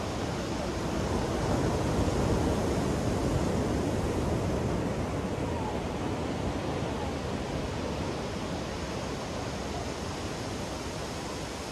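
Ocean surf breaking and washing up a sandy beach: a steady rushing that swells about two seconds in, then slowly eases.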